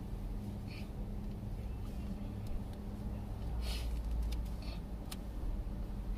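Steady low hum inside a stopped car's cabin, its engine idling, with traffic passing on the road outside; the rumble swells a little past the middle as a car goes by.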